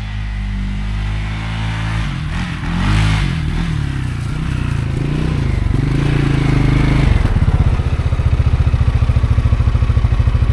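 CFMoto CForce 600 ATV's single-cylinder engine running, its pitch rising and falling a few times between about two and seven seconds in, then settling into an even, pulsing idle. It is running normally now that its dead battery has been dealt with.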